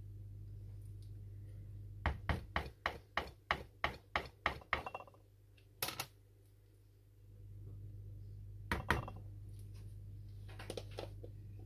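A metal teaspoon tapped quickly against a plastic container, about a dozen sharp knocks at some four a second, knocking neon pigment powder off the spoon; a few single taps follow, over a steady low hum.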